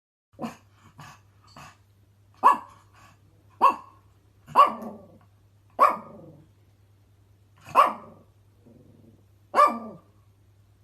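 A dog barking. A few soft short sounds come first, then six loud single barks spaced one to two seconds apart, each trailing off roughly.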